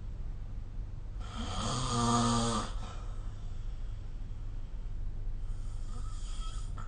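A sleeping person snoring: one loud, pitched snore about a second in that lasts about a second and a half, then a quieter breath near the end.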